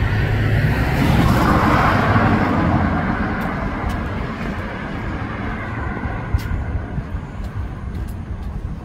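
A motor vehicle passing close by on the street: engine hum and tyre noise swell to a peak about two seconds in, then fade as it moves away.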